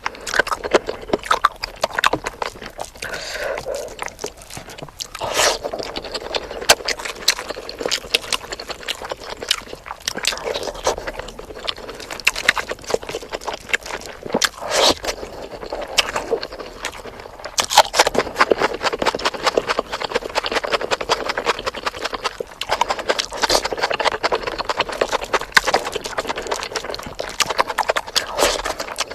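Close-miked eating: a person chewing spicy chicken with wet smacking and rapid clicking mouth sounds.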